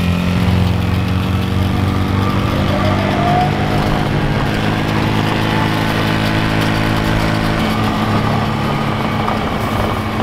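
Four-wheeler (ATV) engine running steadily at a low, even speed.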